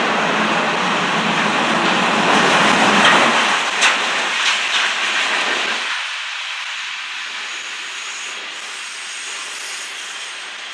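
Freight cars rolling past on the rails, a mix of autoracks and covered hoppers, making a steady rush of wheel and rail noise with a few sharp clacks about four to five seconds in. About six seconds in the low rumble drops away, leaving a quieter, hissy rush.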